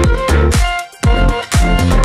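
Background music with a steady beat, about two beats a second, under sustained held notes.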